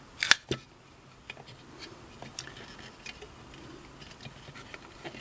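Handling of a Mercury sewing-machine foot pedal's metal housing and plastic carbon-pile unit: one sharp click a moment in, a smaller click just after, then faint scattered ticks and taps as the parts are pressed and shifted into line.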